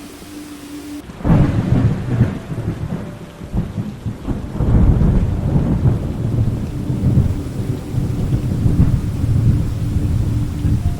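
Thunderstorm: rain falling steadily, with a sudden loud crack of thunder about a second in that rolls on as a deep rumble, swelling again about halfway through.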